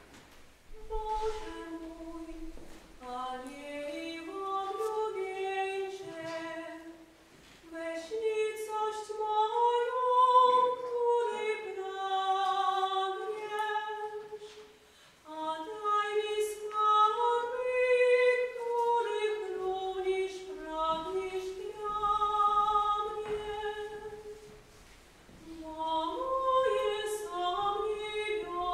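A woman singing a slow melody solo, in long held phrases with short breaks between them.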